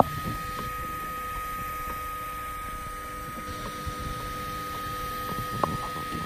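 Ultimaker 3 Extended 3D printer running mid-print: a steady high whine with lower motor tones that come and go as the print head moves, over faint ticking. One sharper click about five and a half seconds in.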